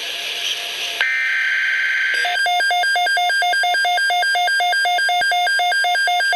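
Weather radio going off for an alert: about two seconds of shrill digital data tones, then the radio's electronic alarm beeping rapidly back and forth between a low and a high pitch.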